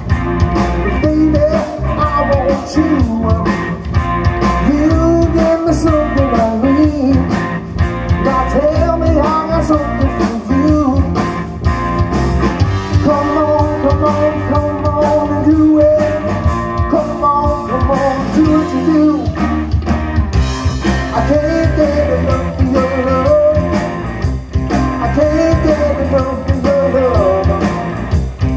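Live rock band playing loud through a PA: electric guitars with a wavering, bending melody line over bass and a steady drum beat.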